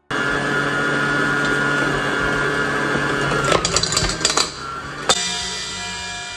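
Electric stand mixer's motor running fast, beating butter and icing sugar in its steel bowl, starting abruptly. Several clatters come about four seconds in, then a sharp click, after which it runs quieter.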